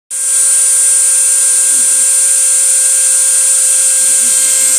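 CNC router spindle running with a steady, high-pitched whine that starts abruptly.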